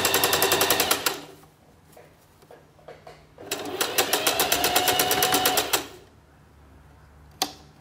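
Singer Heavy Duty 4432 electric sewing machine running a zigzag stitch through jute burlap in two runs at a fast, even stitching rhythm. The first run stops just after a second in, and the second runs for about two seconds in the middle. There is a single sharp click near the end.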